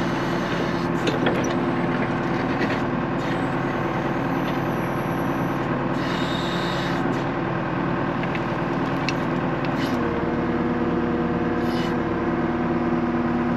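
John Deere 310 backhoe's diesel engine running steadily while digging, with a few short knocks along the way; its note changes about ten seconds in.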